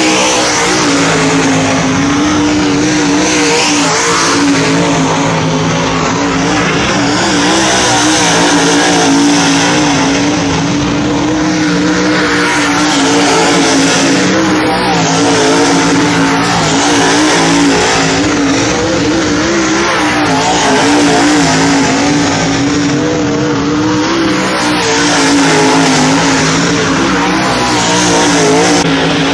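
Dirt super late model race cars' V8 engines running hard around a dirt oval: a loud, continuous engine drone that wavers in pitch and swells a little as cars pass.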